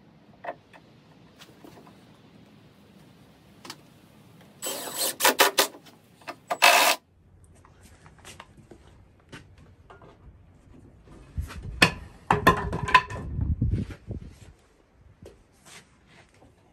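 Knocks, scrapes and rattles of a chainsaw being handled and set down on a wooden frame, with no engine running. There is a loud burst of clatter about five seconds in that cuts off sharply, and a heavier rumbling clatter around twelve to fourteen seconds in.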